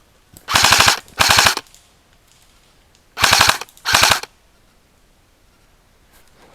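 Airsoft electric rifle firing on full auto: four short bursts of rapid shots, about half a second each, in two pairs a couple of seconds apart.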